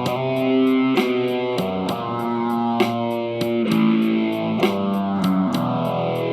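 Guitar music: plucked chords changing every second or so over a steady ticking beat.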